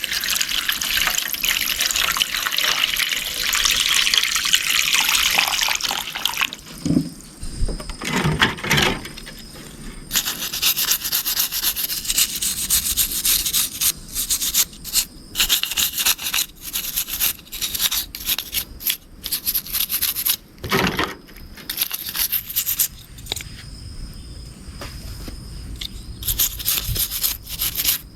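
Water spraying or running for the first few seconds, then a brush scrubbing a mud-covered RC car in quick, irregular strokes, with a few low knocks in between.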